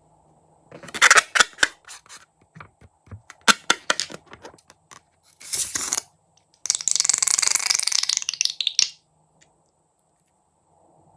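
Crunchy slime being pressed and squished, giving bursts of sharp crackles and clicks, then about two seconds of dense continuous crackling.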